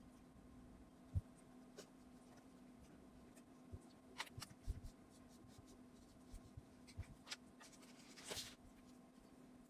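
Quiet scratching and tapping of a marker drawing and writing on paper, with a low thump about a second in and a longer scratchy stroke near the end, over a faint steady low hum.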